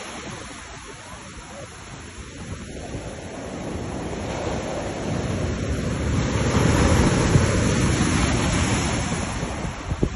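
Heavy sea surf breaking and washing over rocks. A wave surge builds about halfway through and is loudest a little later, then eases. Wind buffets the microphone.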